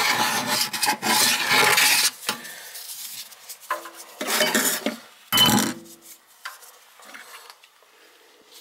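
Metal basket strainer cup being worked in a stainless steel kitchen sink drain, scraping and clinking against the steel drain body. The loudest stretch fills the first two seconds, with two short bursts around four and a half and five and a half seconds in.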